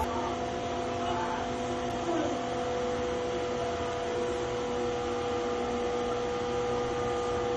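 A steady machine hum with several held tones.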